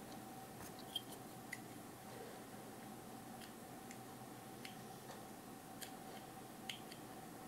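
Faint, scattered light clicks and ticks from fingers handling a 1/400 Hogan Wings Boeing 777-300ER diecast model while trying to spin its engine fans, which barely turn. A faint steady hum runs underneath.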